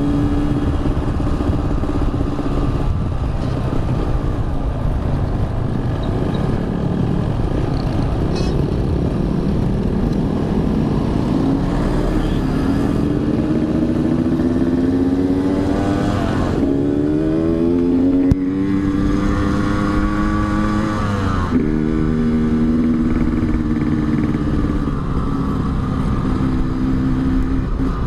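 Yamaha RX-King two-stroke motorcycle engine, fitted with an aftermarket Altec C20 exhaust, running under way with wind noise. The engine holds a steady pitch at first, then climbs in revs twice, with a sharp drop in pitch at each gear change, about two-thirds of the way in and again near three-quarters, before settling to a steady pitch.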